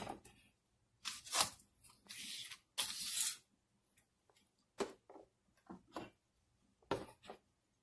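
Kitchen handling noise: a sharp knock at the very start, then a few short bursts of rustling and crinkling and several light clicks.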